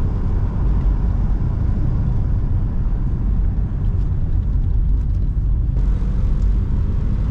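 Car driving slowly up a rough, broken mountain road: a steady low rumble of engine and tyres on the uneven surface.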